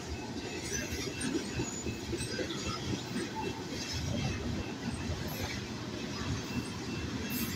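Freight train tank cars rolling past at close range: a steady rumble and clatter of steel wheels on the rails, with faint high wheel squeals now and then.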